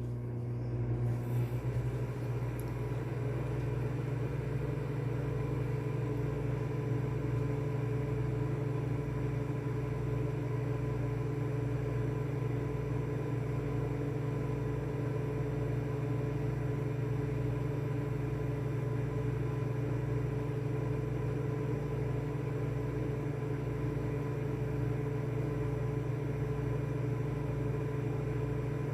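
Microwave oven running on a timed cook, a steady electrical hum with a low drone, as it heats a bowl of beaten eggs. It comes on right as start is pressed and holds unchanged throughout.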